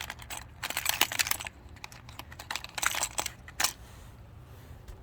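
Hard fishing lures and their hooks being handled, making quick clusters of small clicks and rattles, with a quieter spell near the end.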